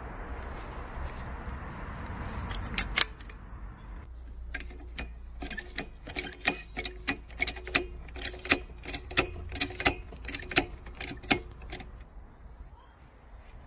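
Handle of a 2-ton hydraulic floor jack being pumped: a steady run of sharp clicks, two or three a second, with a faint creak under them, after a couple of knocks about three seconds in.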